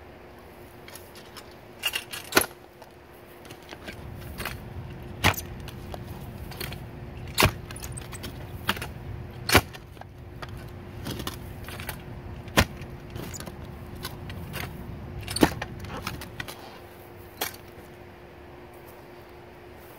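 A clamshell post-hole digger is jabbed down into a hole in root-filled soil about eight times, every two to three seconds. Each jab makes a sharp strike, with crunching and scraping of dirt in between.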